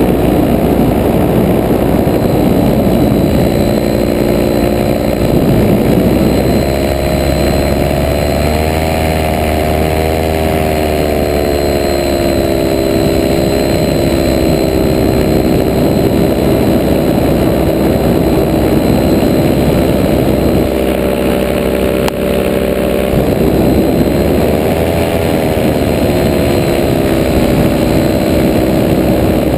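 Powered paraglider (paramotor) engine and propeller running loudly in flight, heard close up with rushing air. The engine speed rises and falls a couple of times, and the pitch climbs and drops with it.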